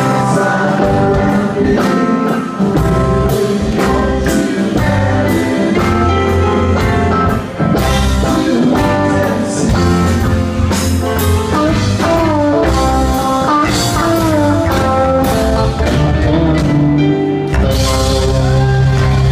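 Live rock band playing: electric guitars, bass guitar, keyboards and drum kit, with a guitar line bending its notes in the middle of the passage.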